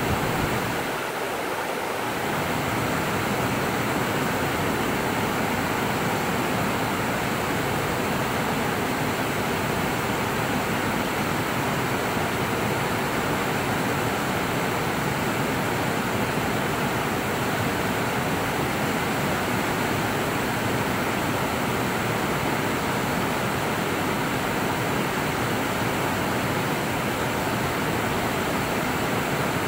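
A wide, low waterfall rushing over stepped rock ledges into a fast creek: a steady, even rush of falling and churning water.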